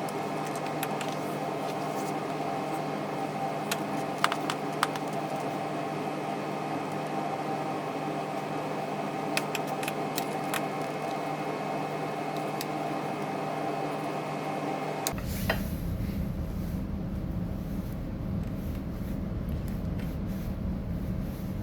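Steady machine-like hum with a few light clicks and taps; about 15 seconds in the background changes abruptly to a duller, lower rumble.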